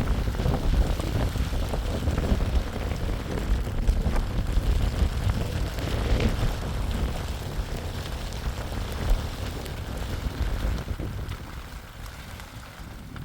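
Strong wind gusting and rumbling on the microphone, with rain falling; it eases off near the end.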